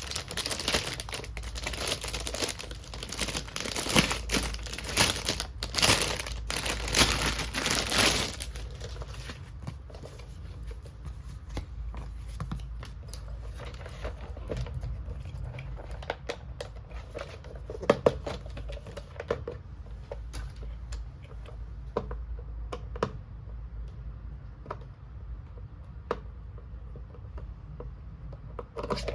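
Plastic packaging crinkling and tearing for about the first eight seconds, then quieter scattered clicks and taps as small toy pieces are handled, with a sharp double click around the middle.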